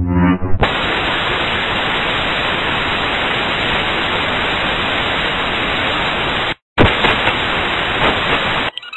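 Loud, steady white-noise static that starts about half a second in, cuts out for a fraction of a second around two-thirds of the way through, and stops just before the end. A low musical drone ends as the static begins.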